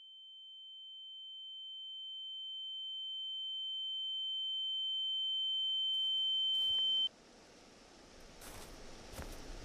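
A single steady high-pitched ringing tone, like a ringing in the ears, swelling slowly louder and then cutting off abruptly about seven seconds in. It gives way to faint outdoor ambience with rustling and small clicks.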